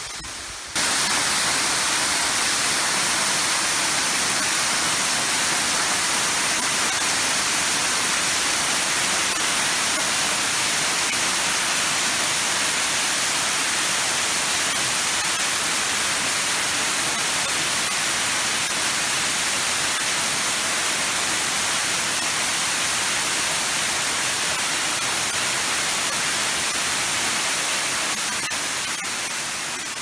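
Kūya Falls, a waterfall pouring onto rocks, heard from close below as a steady rushing hiss of falling water. It jumps louder about a second in and fades slightly near the end.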